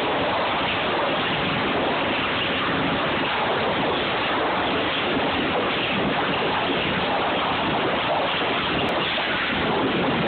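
Steady loud din of sawmill machinery on a lumber trimmer line, an even roar with no single saw cut standing out.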